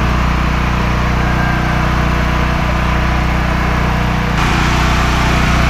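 A small engine running steadily with an even, low hum.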